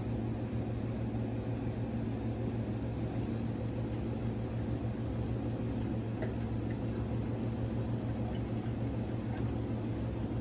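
Electric drinking fountain running: a steady low hum with water flowing faintly and a few small ticks.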